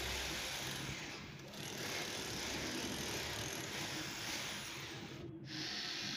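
Electric mini breaker (demolition hammer) rattling fast as its chisel bit cuts a wiring chase into a brick wall. Near the end, after a brief break, an angle grinder cutting into a metal switch box.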